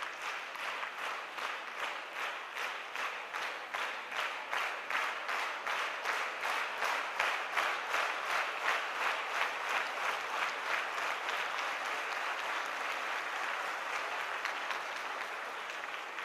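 Audience applauding, the clapping falling into a steady rhythm of about three to four claps a second, then losing the beat and tapering off near the end.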